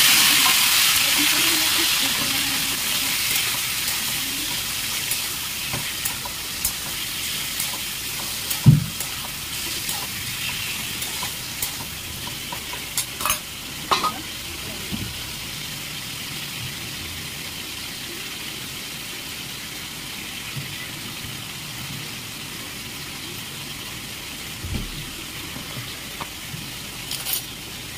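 Food frying in hot oil in a pan: a loud sizzle, strongest at first and slowly settling, with a few short knocks of a spoon or spatula against the pan as it is stirred.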